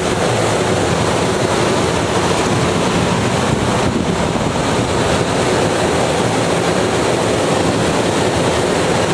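Steady rush of airflow around a glider's cockpit in flight on aerotow, an even unbroken noise.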